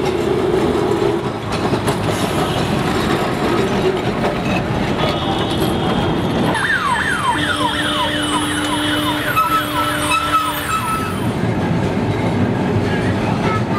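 Kolkata street tram running past close by on its street track, over a steady noise of city traffic. Midway comes a run of about a dozen quick falling chirps over a steady hum, lasting about four seconds.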